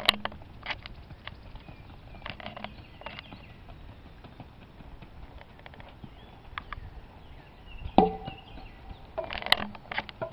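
Rocky Mountain horse's hooves striking the ground at a walk, in short irregular clusters of knocks, as it steps over wooden ground poles. About eight seconds in there is one louder knock that rings briefly.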